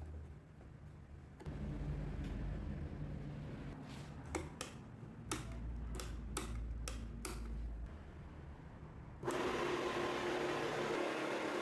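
A few sharp clicks and knocks over a low hum, then about nine seconds in an electric motor switches on abruptly and runs steadily with a whir.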